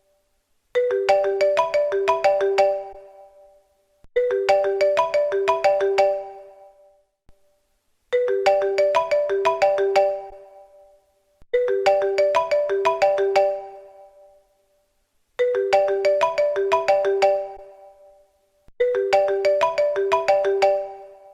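A mobile phone ringtone: a short phrase of quick, bright notes, played six times over at a steady spacing of about three and a half seconds, each phrase fading out before the next begins.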